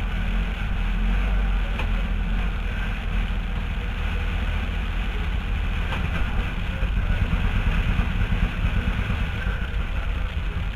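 Car engine running steadily with a low rumble, without a clear rev-up.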